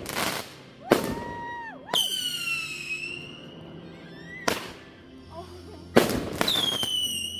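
Consumer fireworks going off: about five sharp bangs. Twice a high whistle starts with a bang, slides slightly down and holds for a second or more.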